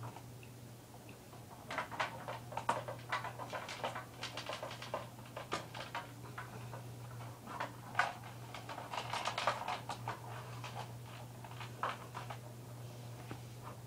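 Irregular light clicks, taps and scratching, busiest about two seconds in and again around eight seconds in, over a steady low hum.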